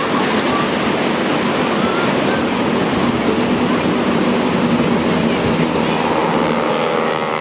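Steady rushing noise of surf and wind under the faint drone of propeller planes. Near the end the engine sound shifts in pitch as an aircraft approaches.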